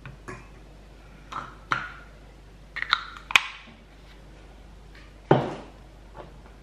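Stainless steel dog bowls knocked and handled on a tabletop: a series of short metallic clinks with a brief ring, the loudest about five seconds in.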